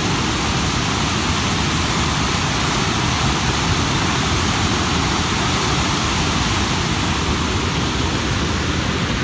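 Loud, steady rush of a mountain torrent cascading down over rock.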